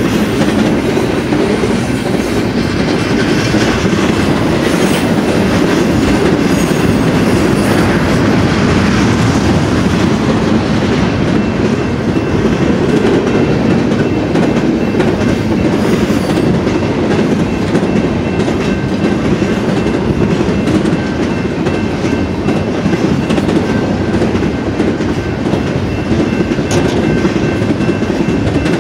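Double-stack intermodal train's well cars passing fast: a steady, loud rumble of steel wheels on the rails that goes on without a break.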